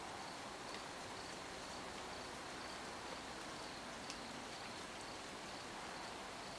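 Faint insects chirping in short, evenly repeated high-pitched pulses over a steady outdoor hiss, with a couple of light clicks, the sharpest about four seconds in.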